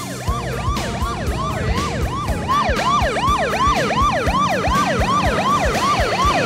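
Police car siren in yelp mode: a rapid rising-and-falling wail repeating about three times a second.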